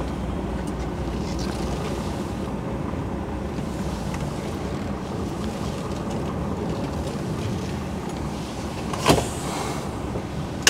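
Cab interior of a DAF XF 530 truck rolling slowly: the PACCAR MX-13 diesel running with a steady low rumble and road noise. A single short knock about nine seconds in.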